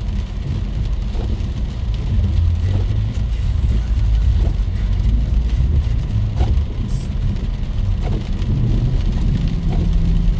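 Heavy rain pouring steadily under a loud, continuous low rumble.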